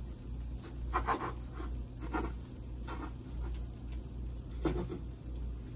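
Serrated bread knife sawing through a stack of flour tortillas: about four scratchy strokes, over a low steady hum.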